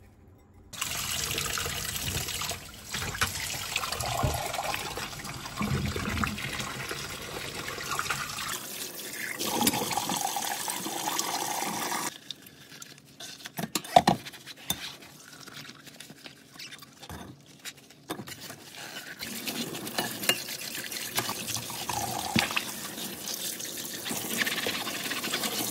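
Kitchen sounds in several short edited takes: water running and pouring, as from a tap into a sink. A quieter stretch in the middle holds a few sharp clicks or knocks.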